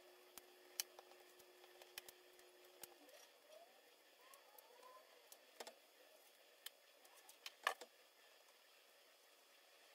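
Near silence with a few faint, soft clicks and squishes from raw longaniza sausage being squeezed out of its casing by hand. A faint steady hum stops about three seconds in.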